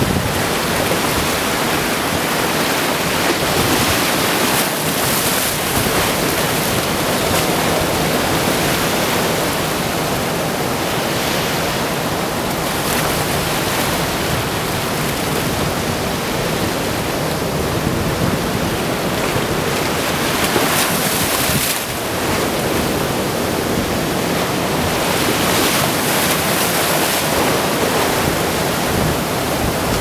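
Small waves washing in over sand and around granite boulders in shallow water: a continuous rushing of surf that swells and eases every several seconds.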